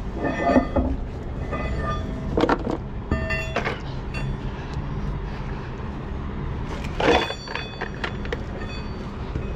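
Metal tools and axle parts clanking and ringing briefly, about five times, during work on a truck's half shaft, over a steady low engine rumble.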